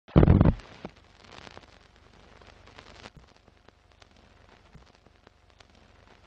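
Film-leader countdown sound effect: a loud low thud at the start, then faint old-film crackle with scattered clicks and pops.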